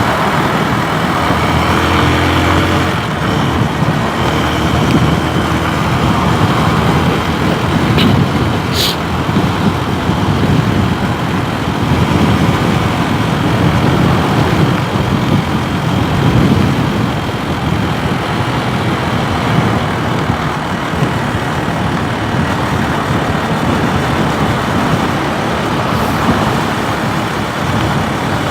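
Motorcycle engine running while riding, under steady road and wind noise, with two short clicks about eight seconds in.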